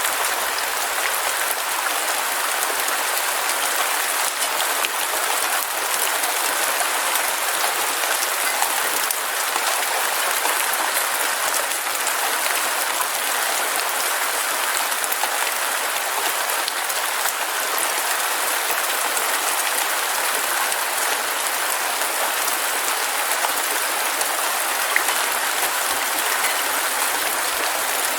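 Heavy rain falling steadily, a dense hiss of many close drops pattering on surfaces.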